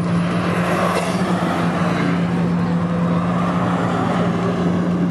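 Sports-car engines running as cars drive slowly past, with a swell of sound about a second in as one passes; a white Lotus Esprit Turbo goes by close near the end.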